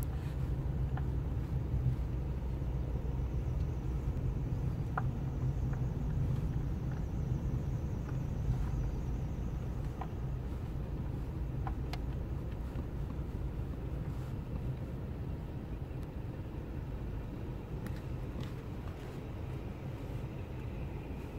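Car cabin noise while driving: a steady low rumble of engine and road, with a few faint clicks.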